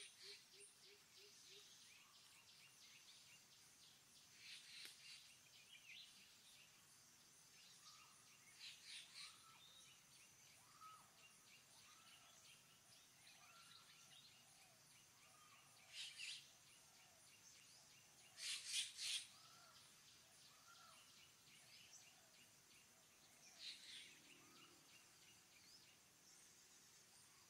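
Faint outdoor ambience of birds: one bird repeats a short call about once a second through the middle, and louder calls break in five times, over a steady high buzz.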